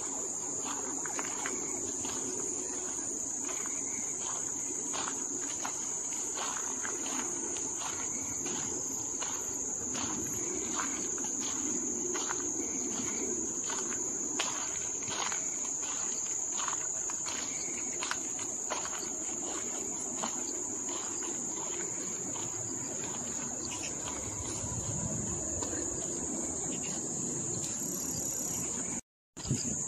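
Steady high-pitched insect chorus, with the walker's footsteps falling about one and a half times a second underneath. The sound cuts out briefly near the end.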